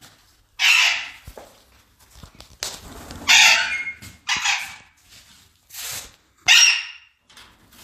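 Alexandrine parakeets giving loud, harsh screeching calls, about six of them, each under a second and spaced a second or so apart.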